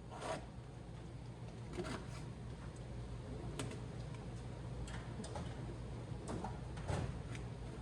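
Scattered light clicks and taps over a low steady hum.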